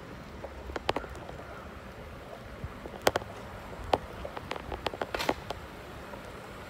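Bicycle rolling along a concrete street: a low steady rumble of tyres and wind, broken by scattered sharp clicks and rattles, with a quick run of them about five seconds in.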